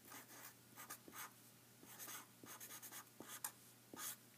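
Felt-tip marker writing on paper: a string of short, faint strokes as figures and letters are written.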